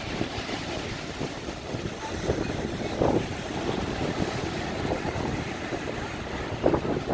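Wind blowing on the microphone over the wash of waves breaking on a sandy beach, with a few brief louder swells.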